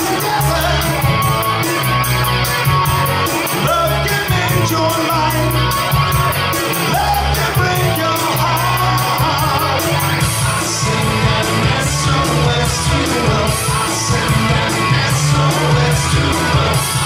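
Live rock song: a man singing and playing an electric guitar, over a bass line and a steady beat.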